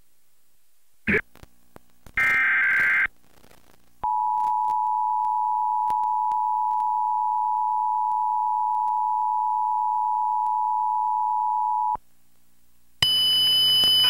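Emergency Alert System two-tone attention signal, a steady dual tone held for about eight seconds that cuts off sharply. It comes after a click and a short buzzy data burst about two seconds in. About a second before the end, a louder noisy sound with high steady tones begins.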